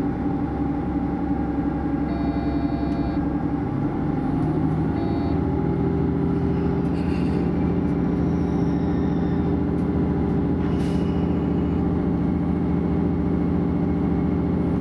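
DB class 641 diesel railcar's engine running under load as the train pulls away, a steady diesel hum heard from inside the car. About four to five seconds in, the engine note steps up and grows a little louder.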